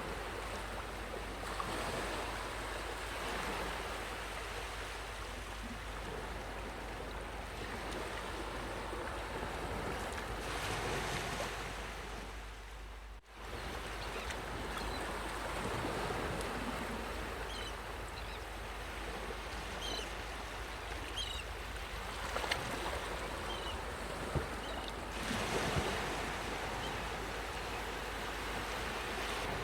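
Sea waves washing ashore: a steady rushing that swells and eases every few seconds, with a brief drop-out about thirteen seconds in.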